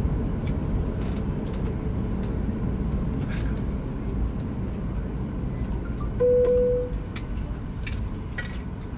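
Airliner cabin noise after landing: a steady low rumble with scattered sharp clicks, and about six seconds in a single cabin chime, a held tone lasting under a second that is the loudest sound.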